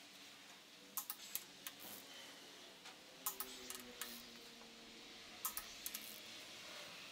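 Torque wrench and socket clicking on the ARP head bolts of a Jeep 4.0 inline-six cylinder head while they are torqued down: three short clusters of sharp clicks, about two seconds apart.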